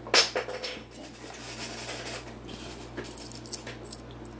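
Hot Wheels die-cast toy cars handled by hand: a sharp clack just after the start, then a few faint clicks and rustles over a steady low electrical hum.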